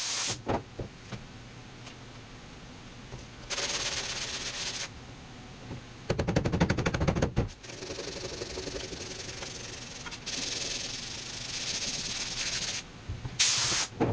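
Compressed-air blow gun hissing in several bursts as it blows sanding dust off body filler. About six seconds in there is a loud burst of rapid rattling lasting about a second and a half.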